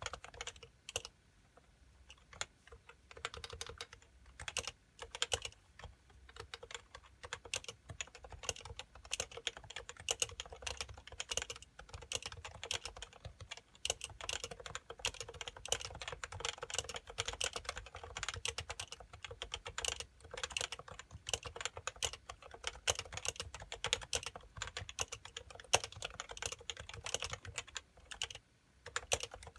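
Typing on a Happy Hacking Keyboard Pro 2 with Topre electrostatic-capacitive switches of uniform 45 g weight: a quick, irregular run of keystrokes with short pauses now and then.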